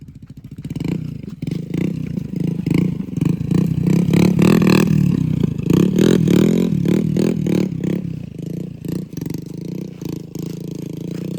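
Motorcycle engine running, with clattering and scraping noises over it.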